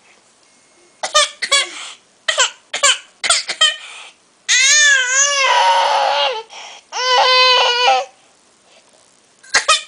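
Baby fussing and crying: a run of short, high-pitched cries, then two longer wailing cries, the first wavering up and down in pitch, the second held on a steadier note, and two short cries near the end.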